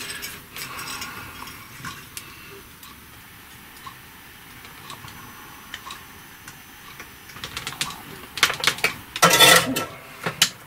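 Light clicks and taps of hand tools and solder wire against a circuit board during soldering, with a denser run of sharp clicks and clatter near the end.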